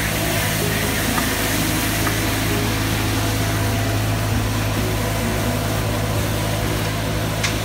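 A Kärcher compact street sweeper running steadily as it passes: a constant low engine hum under a broad hiss from its rotating brushes and suction.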